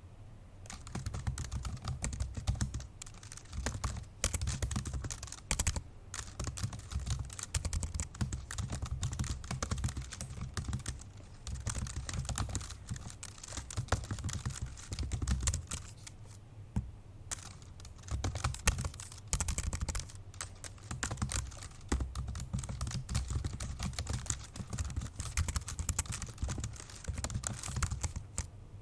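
Fast, forceful typing on an old MacBook Pro's built-in laptop keyboard: dense runs of key clicks with a dull thud from each stroke, pausing briefly about halfway through.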